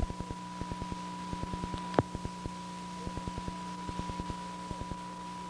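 A steady sine test tone near 1 kHz over a low hum, with frequent short clicks and pops. A sharper click comes about two seconds in.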